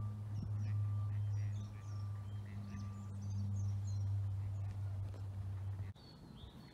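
Small birds chirping and whistling in short, scattered calls over a steady low hum, and the hum cuts off suddenly about six seconds in.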